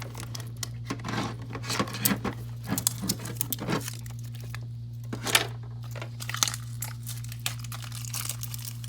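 Plastic wrapping being peeled and crinkled off a toy package by hand, with dense irregular crackles for the first four seconds or so and only occasional ones after. A steady low hum runs underneath.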